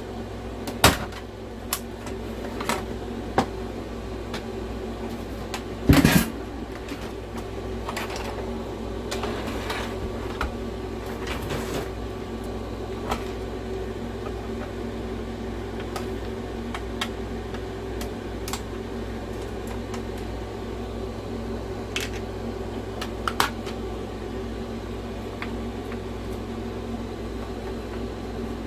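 Scattered clicks and knocks of console parts being handled and pried at while taking apart an original PlayStation 4, the loudest a knock about six seconds in, over a steady low hum.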